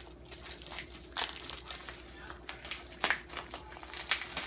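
Crinkling and crackling of a sealed plastic-and-foil ammunition package being handled and picked open by hand, in irregular sharp rustles.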